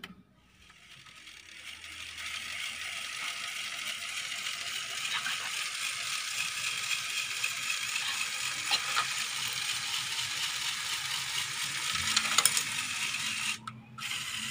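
Motor-driven plastic gear train of a Lego Technic 42043 Mercedes-Benz Arocs running steadily, a whirring, clattering gear noise as the dump bed tips up, with a few sharper clicks. It stops briefly near the end, then starts again.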